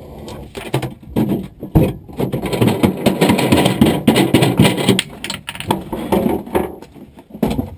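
Irregular clicking, knocking and rustling inside a stripped-out rally car cabin as the co-driver shifts about and handles things near the centre console, densest through the middle and thinning out near the end.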